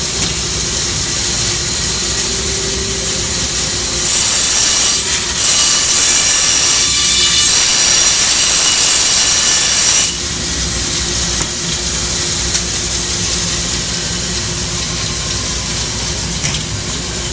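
Bandsaw running with a steady hum, its blade cutting through a thick cork decoy block: a loud, high-pitched cutting noise from about four to ten seconds in, with two brief breaks, then back to the machine's idle hum.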